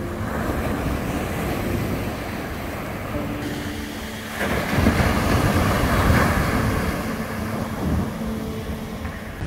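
Ocean surf breaking on a sandy beach: a steady rush of waves, swelling louder as a wave crashes about four and a half seconds in, then easing off.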